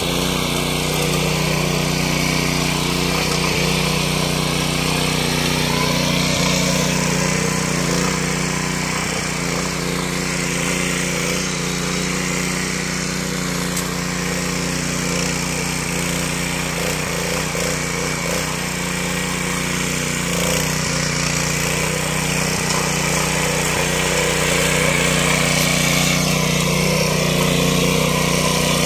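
Small petrol engine of a walk-behind rotary tiller running steadily under load as its tines churn soil, a little quieter in the middle as the machine works farther off.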